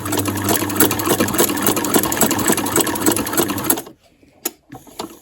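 Domestic sewing machine running at a steady speed, stitching free-motion with rapid needle strokes over a motor hum, then stopping abruptly about four seconds in. A couple of light clicks follow.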